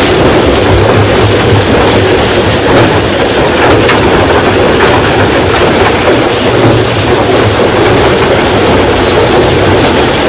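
Rock crushing machine running under load: a loud, steady, continuous clattering rattle of stone being broken.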